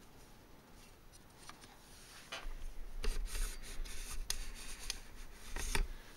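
Handling noise from a handheld camera being moved: a few faint ticks, then from about two seconds in, rubbing with sharp knocks and a low rumble.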